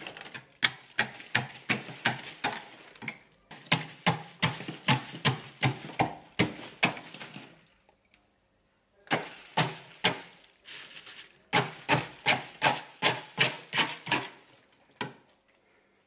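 Repeated sharp knocks, about two or three a second, of thick frost and ice being chipped off the inside wall of a chest deep freezer. The ice has built up badly, a freezer overdue for defrosting. The chipping pauses briefly just past halfway, then goes on, stopping shortly before the end.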